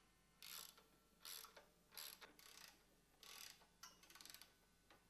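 Ratchet wrench clicking in a series of short strokes as a bolt on the crane mast is tightened, with a quicker run of clicks about four seconds in. The sound is faint.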